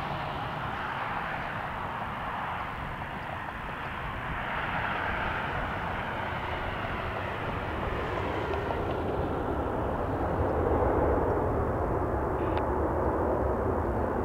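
Twin-engine Boeing 737 jet airliner on its landing roll, a steady jet-engine roar that grows louder in the second half.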